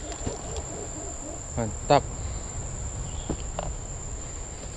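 Insects droning in one steady high-pitched tone, with a man's short exclamation about two seconds in.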